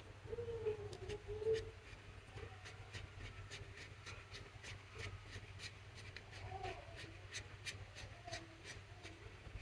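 Slime being squished and worked by hand, giving a run of small clicks and pops, several a second.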